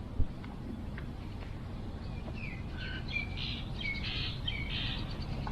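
Birds chirping in a quick run of short, high calls over a steady low outdoor rumble, with one sharp thump just after the start.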